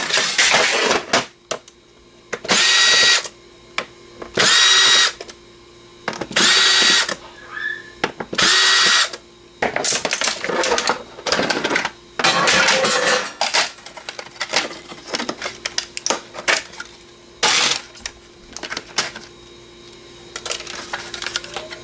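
Cordless power driver unscrewing the screws of a PC DVD drive's casing, in short whirring bursts about every two seconds, then the clicking and rattling of the drive's metal and plastic parts being pulled apart and handled.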